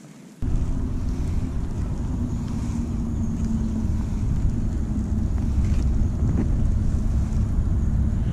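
Wind buffeting the microphone: a loud, low, steady rumble that cuts in about half a second in, with a faint steady hum beneath it.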